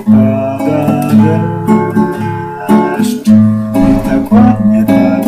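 Acoustic guitar strumming chords in an instrumental break between sung verses of a song.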